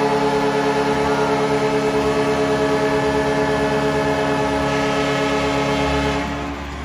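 Hockey arena goal horn sounding one long, steady blast, the signal of a home-team goal. It fades out about six seconds in.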